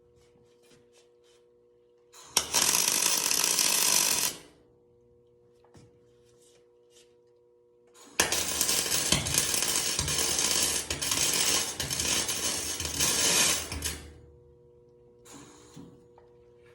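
MIG welding arc on aluminum giving a loud, crackling hiss in two stop-start runs, one of about two seconds beginning about two seconds in and a longer one of about six seconds beginning about eight seconds in, with a faint steady hum between. The short, broken runs go with poor wire feed, which the welder blames on bad wire.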